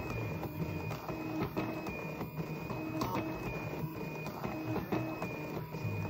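Stepper motors of an Arduino-driven Rubik's cube solving robot turning the cube's faces move after move. They give a quick run of short whining tones with clicks as each turn starts and stops.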